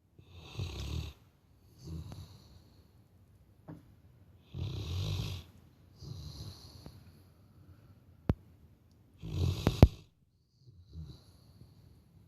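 Labrador retriever snoring loudly like a person, in slow breaths that come as a louder rasping snore followed by a softer one, about every four and a half seconds. A few sharp clicks sound near the end, the loudest during the last loud snore.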